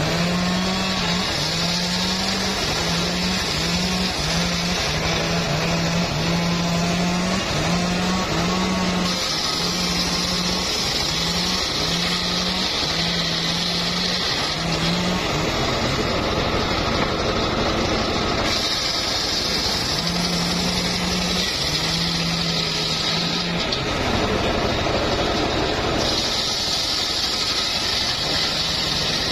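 Homemade engine-driven circular saw bench running steadily while its blade rips a teak log lengthwise. The cutting noise swells in three stretches, beginning about a third of the way in, near two-thirds and near the end, as the log is pushed through the blade.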